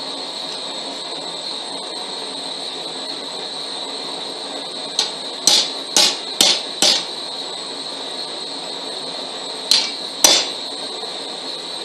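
Hand hammer striking glowing-hot rebar on an anvil: a quick run of five blows about halfway through, then two more near the end, over steady background hiss with a high whine.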